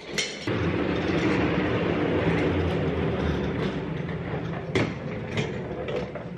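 Upholstered chair being dragged across a hard floor: a continuous scraping rumble, with a few sharp knocks near the end.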